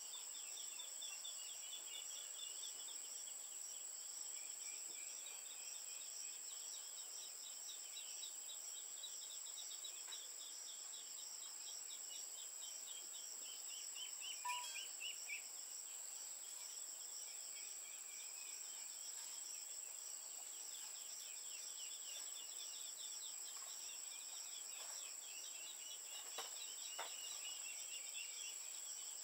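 Insects chirping steadily: a continuous high buzz with rapid pulsing trills over it. A few faint short clicks, about halfway through and again near the end.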